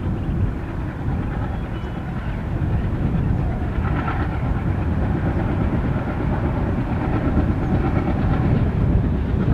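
Passenger train hauled by an ALCO diesel locomotive running past, a steady heavy rumble of wheels on the rails.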